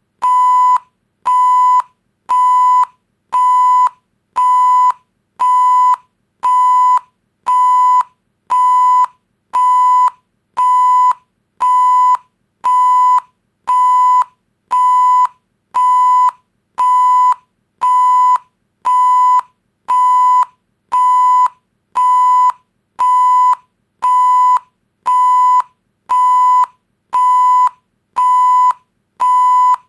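Electronic beep sound effect: a steady 1 kHz tone repeating about once a second, each beep a little over half a second long with a short gap between.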